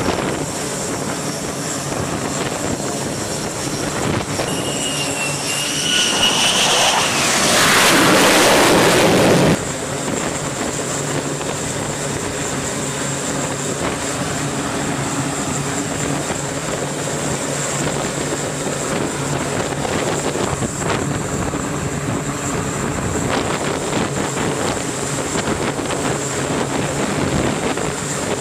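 F-35 fighter jets' turbofan engines running on deck as the jets taxi: a steady jet roar with a high whine. About five seconds in a whine rises, then a louder rushing blast takes over for a couple of seconds and cuts off abruptly.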